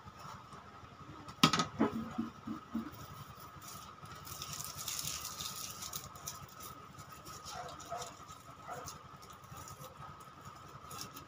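Kitchen knife chopping ginger on a plastic cutting board: one sharp knock about a second and a half in, then a few quicker taps. Soft rustling and light handling noises follow as fresh green stalks are pulled apart by hand, over a faint steady high hum.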